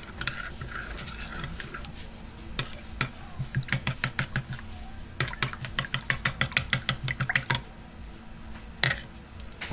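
A spoon stirring dipping sauce in a ceramic mug, clinking against the sides in quick runs of about five taps a second, with one sharper clink near the end.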